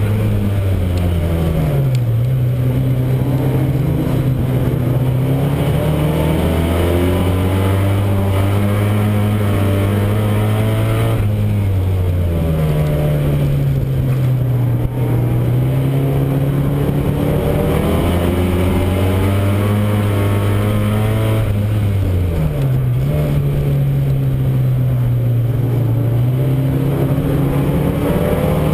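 Euro Rod race car engine heard from inside the car, running hard with its note rising and falling lap by lap. The pitch drops sharply about every ten seconds, near the start, halfway through and again later, as the car lifts off for the bends, then climbs again along the straights.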